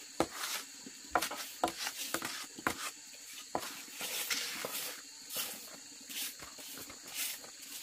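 Irregular rustling and light clicks, a few a second, over a steady high-pitched hiss.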